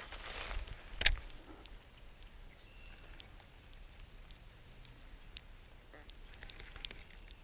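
Rod and reel handling during a lure retrieve: a sharp click about a second in, then faint scattered ticks and light rustles.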